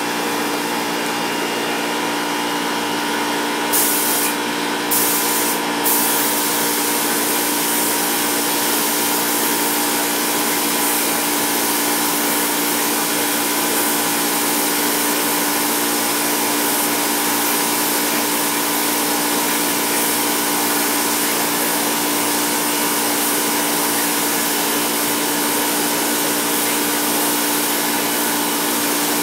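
Compressed-air paint spray gun hissing as it lays down a first coat of paint: three short trigger bursts about four to six seconds in, then a steady spray, over a constant machine hum.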